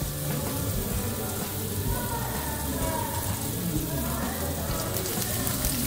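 Thin potato slices frying in hot oil in a shallow pan, a steady sizzle.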